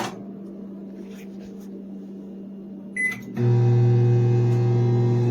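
Toshiba ML-EM09PA(BS) microwave oven beeping once, briefly, about three seconds in, then starting to run with a loud steady hum.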